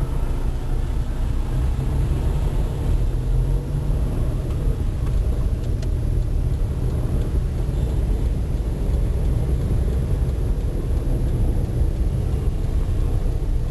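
Steady low rumble of a vehicle travelling through busy road traffic, with no distinct events standing out.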